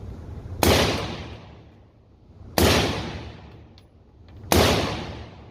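AR-style rifle fired three times in semi-automatic mode, about one shot every two seconds, each shot trailing off in a long echo.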